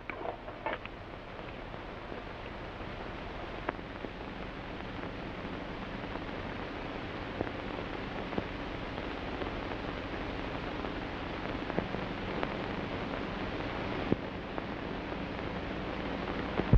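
Steady hiss with scattered clicks and crackles, slowly growing louder: surface noise of a worn 1929 optical film soundtrack.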